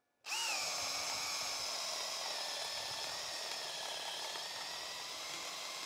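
Bosch Profactor GSB18V-1330C 18V brushless hammer drill boring a 3/4-inch auger bit into stacked lumber. Its motor whine starts about a quarter second in with a brief wobble in pitch, then runs steadily under load.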